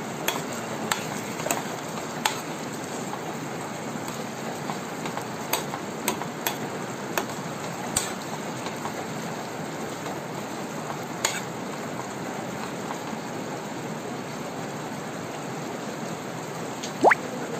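Chicken with tomatoes and chillies sizzling in a pan on a gas burner while a spoon stirs it, with scattered clicks of the spoon against the pan through the first ten seconds or so. Near the end comes a short rising squeak, the loudest sound.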